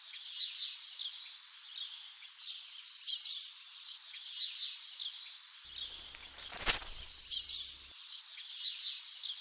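Birdsong ambience: scattered short bird chirps over a steady outdoor hiss. A single sharp click about two-thirds of the way through.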